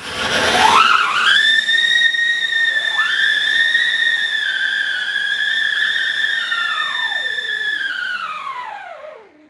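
Two whistling fountain fireworks (flower pots) shooting sparks, each giving a loud, steady, high whistle. The first comes in with a short rushing hiss and a rising pitch about half a second in, and the second joins about three seconds in. Each dies away with a falling pitch near the end, one about a second before the other.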